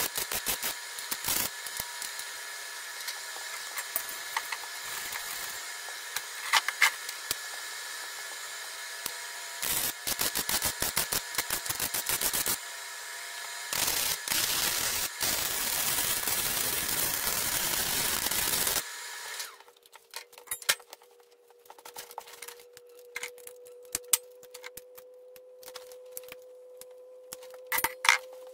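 Wire-feed welder laying beads on steel sheet: an arc crackling and sizzling in several runs with short pauses, stopping about two-thirds of the way through. After that, scattered light clicks and clatter of tools being handled over a faint steady hum.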